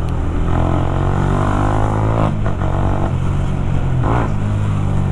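Sport motorcycle engine with a loud aftermarket exhaust, accelerating: the engine note climbs, breaks about two seconds in and again near four seconds, then carries on.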